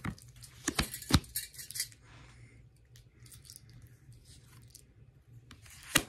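Tarot cards being handled and shuffled: a few sharp snaps of the cards in the first second or so, then soft rustling and faint clicks, with one more snap at the very end.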